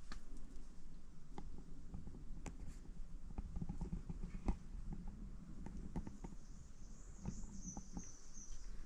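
Footsteps and scuffs on rough cave rock: irregular knocks and scrapes over a low rumble, with a faint high chirping near the end.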